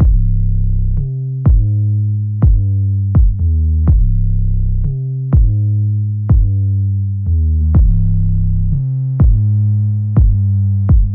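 Electronic background music: a drum-machine beat over deep synthesizer bass notes.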